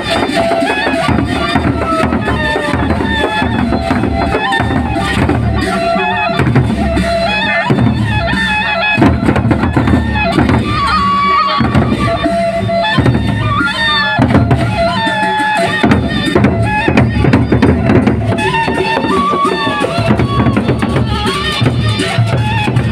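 Gendang beleq ensemble playing: large drums beating a continuous rhythm, with a wavering high melody line over the drumming.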